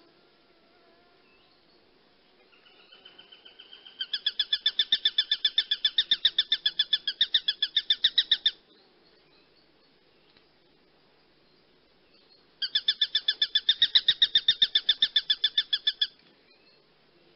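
Hawk calling in a fast chattering series of sharp, high notes, about nine a second. The first bout starts faint, turns loud after a second or so and runs about six seconds. After a pause of about four seconds a second, shorter bout follows.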